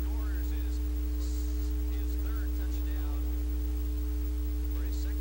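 Steady electrical hum: a low drone with two steady higher tones above it.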